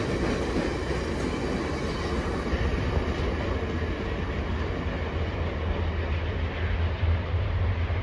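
Stainless-steel Budd passenger cars of a VIA Rail train rolling past on the track and moving away, a steady rumble of wheels on rails.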